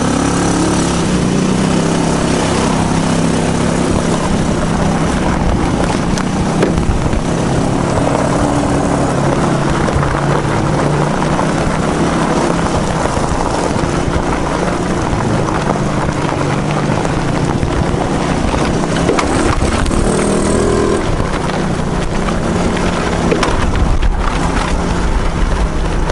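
250cc Hammerhead go-kart engine running under way, its carburettor freshly cleaned. The engine note steps up and down in pitch as the throttle changes while the kart is driven.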